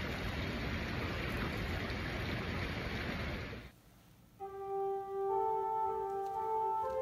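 A sheet of paper burning close to the microphone, a steady crackling hiss that cuts off suddenly between three and four seconds in. After a brief silence, slow instrumental music of long held notes begins.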